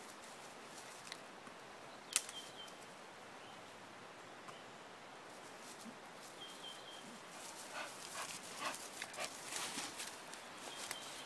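A dog rummaging among fallen branches in dry leaf litter, faint: a sharp twig snap about two seconds in, then a denser run of rustling and crackling of dry leaves and twigs in the second half. Three brief, thin, high tones are heard along the way.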